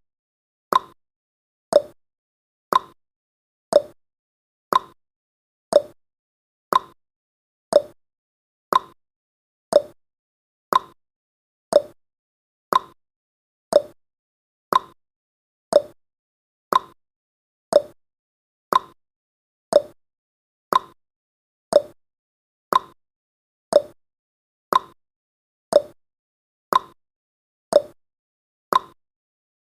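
Clock-style ticking sound effect of a countdown timer: one sharp tick each second, alternating slightly in pitch like a tick and a tock.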